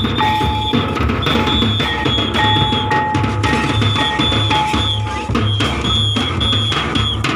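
Folk dance music from barrel drums played in a steady beat of deep thuds, with high held notes piping over the top in short phrases.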